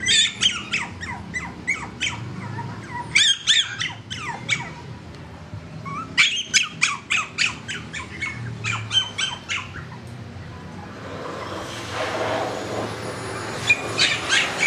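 A puppy yipping in quick runs of short, high-pitched yelps, in four bursts of several yips each. A rustling noise rises in the gap before the last burst.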